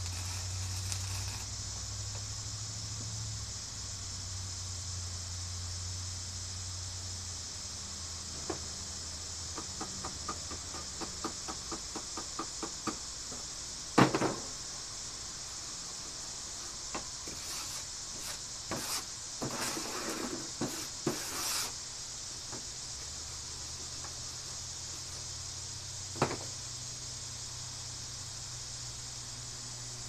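Welding arc sizzling as a hook is welded onto a steel garage-door spring, cutting off about a second and a half in. Over a steady hiss there is then a quick run of light metal taps, one loud sharp knock, and a few seconds of scraping and clatter.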